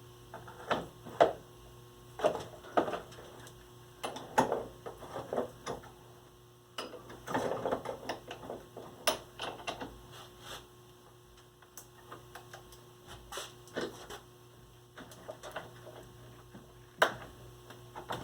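Irregular clicks, taps and scrapes of tools and metal parts being worked on a Maxtor hard drive as it is taken apart, with a longer stretch of scraping about seven seconds in.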